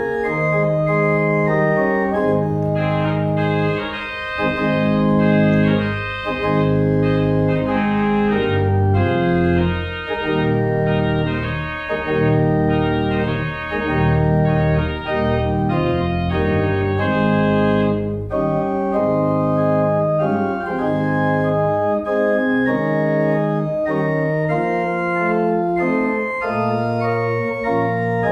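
Pipe organ playing slow, sustained chords with pedal bass notes underneath. About 18 seconds in, the deep bass thins out and the texture becomes lighter.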